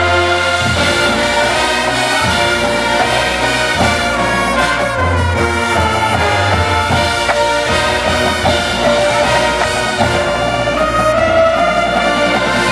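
Drum and bugle corps playing: a full brass line of bugles sounding over front-ensemble mallet keyboards, with sharp drum hits every second or two.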